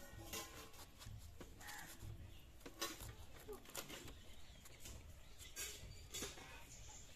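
Quiet, scattered clicks of a small knife slicing through an eggplant, with pieces dropping into a steel bowl of mushrooms, over faint background bird calls.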